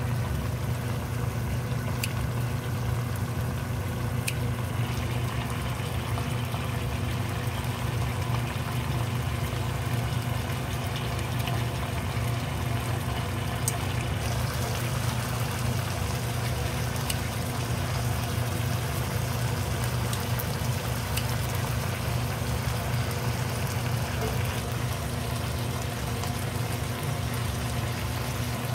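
Marinated chicken sizzling and bubbling in its sauce in a wok, a steady cooking noise over a low hum, with a few light metallic clicks from kitchen scissors and tongs.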